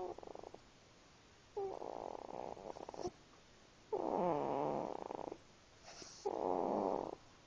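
Snoring in slow, regular breaths: four raspy breaths about a second long each, roughly two seconds apart, some starting with a short squeaky whistle.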